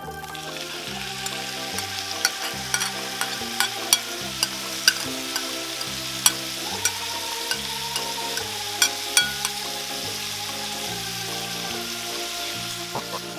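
Marinated beef and sliced onion sizzling in hot oil in a nonstick wok-style pan, the sizzle starting as the meat goes in. Frequent sharp pops and crackles through the frying, fewer toward the end.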